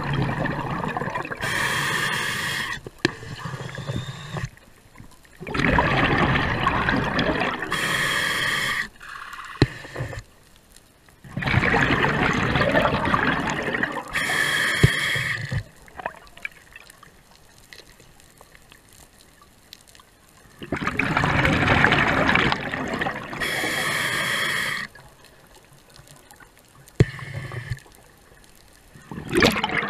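Scuba diver breathing through a regulator: about four breaths, each a rush of exhaled bubbles followed by a short hiss of inhaled air, with quiet pauses between.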